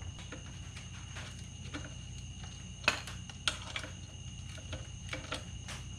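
Scattered sharp metallic clicks and clinks of a wrench tightening the nut on a dirt bike's swing-arm pivot bolt, clustered around three seconds in and again near the end, over a steady low hum.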